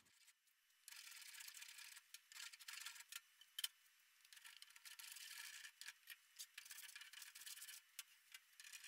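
Faint hand-planing strokes: a spokeshave and plane shaving the edge of a plywood template down to a marked line. Several scraping strokes of about a second each, with small clicks between them.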